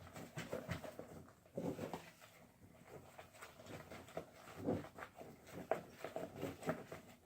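Slime being stirred and worked in a bowl: irregular wet squelches and clicks, coming several times a second.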